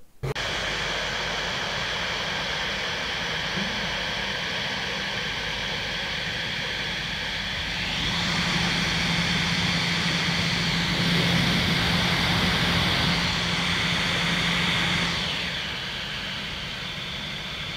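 MacBook cooling fans running flat out under full CPU load: a steady, higher-pitched rush of airflow with a faint low hum from the fans. The rush grows louder about eight seconds in and eases back near the end. The strong airflow shows that air now passes freely through the freshly vacuumed fans and heat-sink fins.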